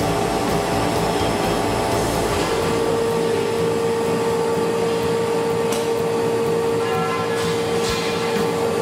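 Large industrial machine running steadily, a continuous mechanical drone with a steady whine that comes in about two and a half seconds in and holds, and a few light clicks in the second half.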